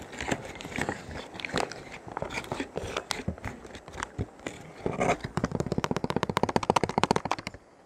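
A spoon stirring a rehydrating freeze-dried meal inside its foil pouch: crinkling of the pouch with scraping and clicking of the spoon. About five seconds in it turns into a fast run of scrapes that stops abruptly near the end.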